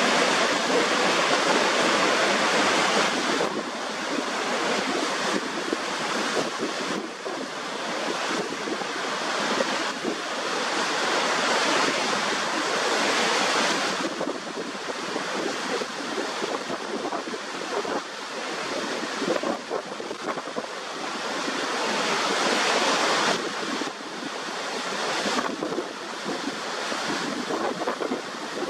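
Steady rush of Niagara Falls' water pouring over the brink and crashing below, with wind buffeting the microphone. The noise swells and eases every several seconds.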